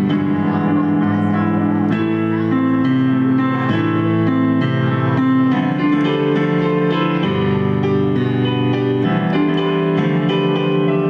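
Live music: an electric keyboard playing held chords.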